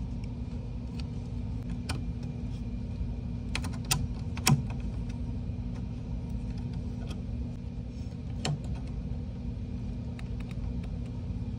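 Scattered small metal clicks and taps as pliers grip and work at a 3D printer's stuck hotend, the loudest a sharp click a little before the middle, over a steady low hum.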